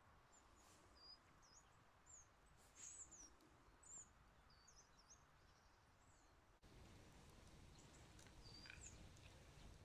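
Near silence with faint, short, high bird chirps repeating throughout. About two-thirds of the way through, the background suddenly gets a louder low rumble.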